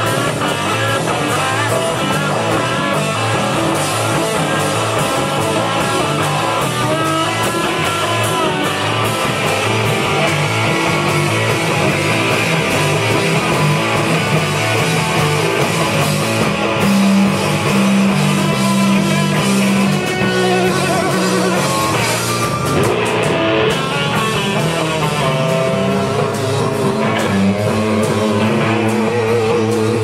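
Live rock band playing loud, with electric guitar through amplifiers, continuous throughout.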